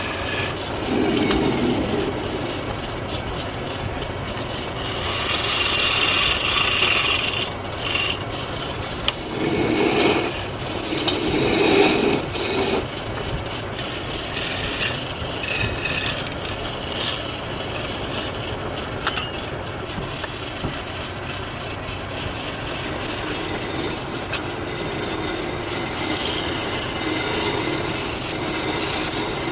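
Woodturning tool scraping and cutting wood on a lathe, a steady rasping noise that swells louder several times in the first half.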